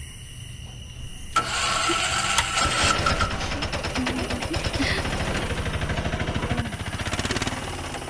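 Auto-rickshaw engine starting about a second in, with a brief whine, then running with a rapid, even putter that fades near the end.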